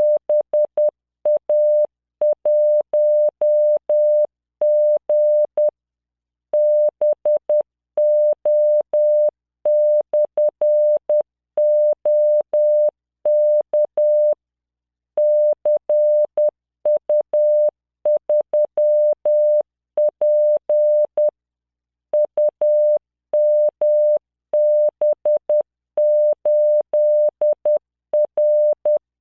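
Morse code sent by CW training software at 10 words per minute: a single steady 600 Hz tone keyed on and off in dots and dashes. Short gaps fall between letters, and pauses of nearly a second fall between some groups.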